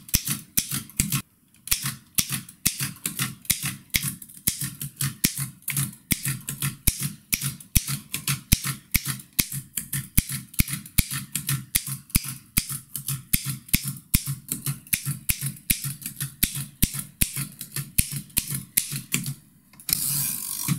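Old mechanical typewriter with round glass-topped keys being typed in an even rhythm, about three to four key strikes a second, drilling the K and comma keys with the space bar. A brief rushing noise comes about a second before the end.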